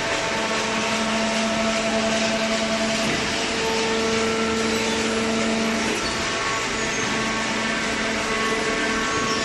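Hydraulic vertical baler's pump and electric motor running, a steady whining hum whose tones shift a few times as the load changes.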